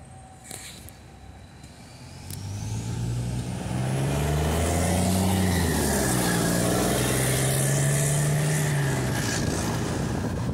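Double-decker bus's diesel engine with a blown exhaust, pulling away and passing close by. The engine note builds up about two seconds in and is loudest as the bus goes past, its pitch rising and dipping, then eases slightly as it drives off.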